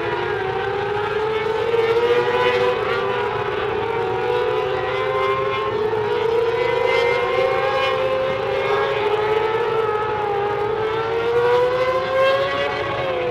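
Engines of several mini sprint race cars running laps on a dirt oval, their overlapping tones slowly rising and falling in pitch as the cars go round.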